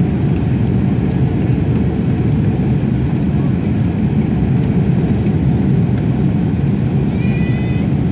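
Steady low roar of engines and rushing air heard inside the cabin of an Airbus A330-300 on approach to landing.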